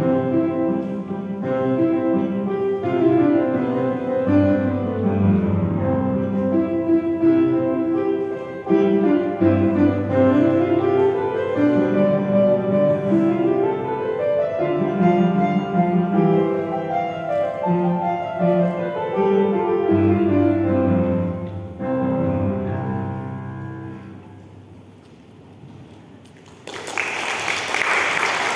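Upright piano playing a sonatina, with quick rising and falling scale runs, ending on a chord that fades away. Applause breaks out near the end.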